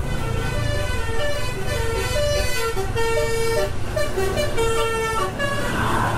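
A bus's musical horn playing a jingle-like tune of held notes, the kind that sounds like a children's ride vehicle. The tune stops about five seconds in. Underneath is the steady low rumble of the moving motorcycle and the wind.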